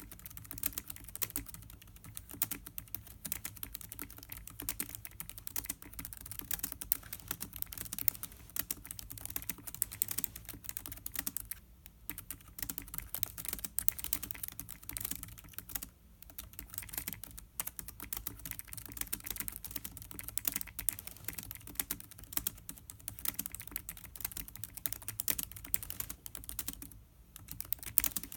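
Fast, continuous typing on a Lenovo ThinkPad X1 Carbon (2016) laptop's built-in keyboard: a dense stream of key clicks with a few brief pauses.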